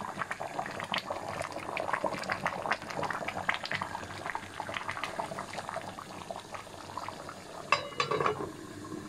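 Chicken stewing in tomato sauce bubbles and pops at a simmer in a metal pot. Near the end a metal lid is set on the pot with a sharp clank that rings briefly.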